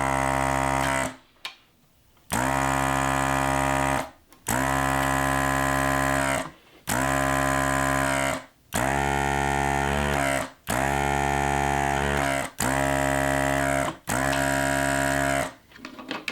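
Hakko desoldering gun's vacuum pump switching on and off, eight short bursts of a steady buzzing hum, one for each solder joint it sucks clear on a garage door opener's power relay.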